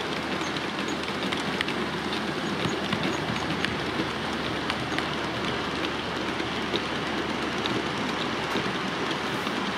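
OO gauge model trains running on the layout: a steady rolling noise of metal wheels on track, with scattered small clicks from rail joints and pointwork, most frequent in the first few seconds.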